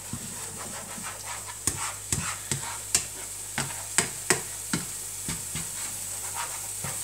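Slotted plastic spatula stirring and scraping scrambled eggs around a non-stick frying pan, in irregular scrapes and taps over a soft, steady sizzle of the eggs cooking.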